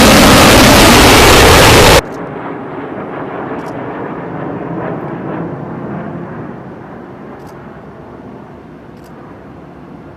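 Jet fighter engine noise: a very loud blast of jet roar for about two seconds that cuts off abruptly, followed by a quieter jet rumble that slowly fades away.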